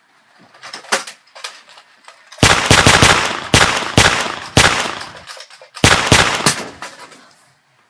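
Gunfire sound effect: a few light clicks, then a loud burst of rapid shots about two and a half seconds in, a short pause, and a second shorter burst.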